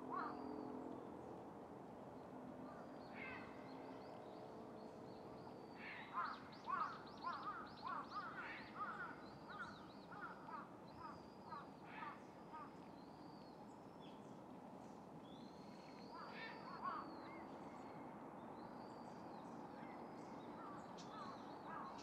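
Small birds chirping in quick high notes throughout, busiest about a quarter to halfway through. Low guttural croaks from a great cormorant at its nest come near the start and again about three-quarters of the way through.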